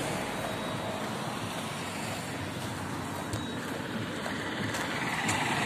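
Road traffic noise: a steady wash of passing vehicles such as motorcycles and auto-rickshaws, with one short knock about three seconds in.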